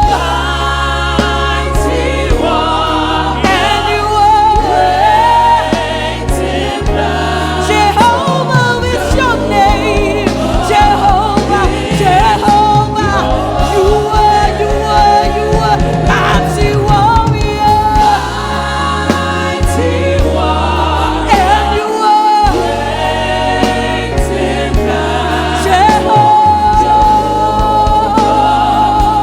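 Live gospel worship music: a choir sings with the band, over a bass line that moves in steps.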